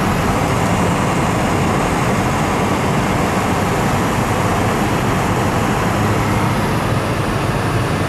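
Steady road noise inside a moving car on a snow-covered road: a constant low hum of tyres and engine with an even rush over it.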